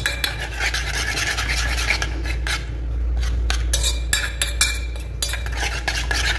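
Metal spoon beating raw egg mixture in a stainless steel bowl: rapid, irregular clinking and scraping of the spoon against the bowl.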